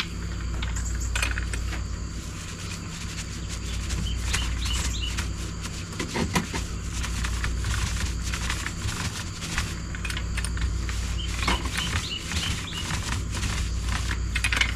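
Paint roller on an extension pole rolling paint onto rough T1-11 plywood siding, an irregular crackle with each stroke, over a steady low rumble. Insects chirp in short runs.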